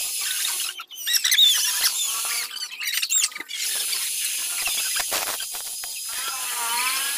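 A small lathe's cutting tool squealing against a spinning metal workpiece in several shrill, wavering stretches with short breaks, over the lathe's steady high whine.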